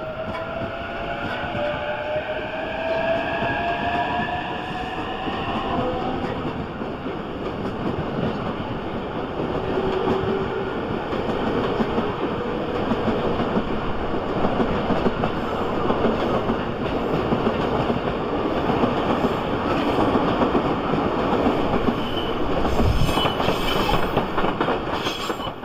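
JR E233-3000 series electric train pulling out of a station: its traction motors whine, rising in pitch as it speeds up over the first several seconds. The rumble and clatter of its wheels on the rails follows as the cars pass.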